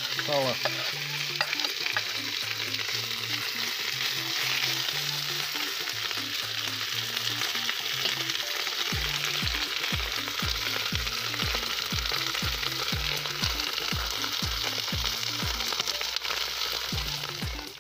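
Cubes of pork fat sizzling steadily as they fry in a hot cast-iron kazan, stirred now and then with a metal skimmer. Faint background music with a bass beat sits underneath, the beat coming in about halfway through.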